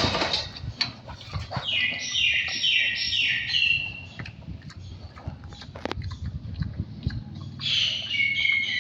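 A run of about four short, high, falling animal calls, then a second short run near the end, over low rustling and scattered knocks.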